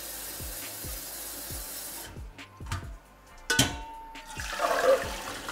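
Kitchen tap running into a steel saucepan of soaked kidney beans, shut off about two seconds in. A ringing metal clank follows about a second later, then the rinse water and beans are poured from the pot into a metal colander in the sink. Background music with a steady beat plays underneath.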